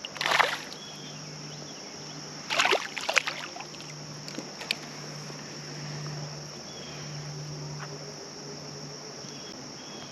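Steady outdoor background of flowing water with a constant high insect drone. A few short noisy bursts, like handling or splashing, come just after the start and again about three seconds in.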